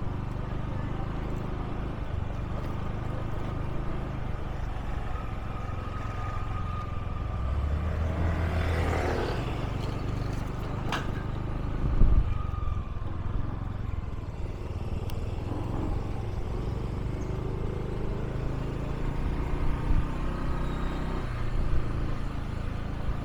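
Motorbike running steadily while being ridden along a road, with a steady low rumble. It swells louder for a couple of seconds around eight to ten seconds in, and there is a single sharp knock about twelve seconds in.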